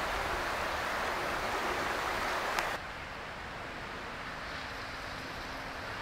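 River water rushing over shallow riffles, a steady hiss; just under three seconds in it drops suddenly to a fainter, more distant rush.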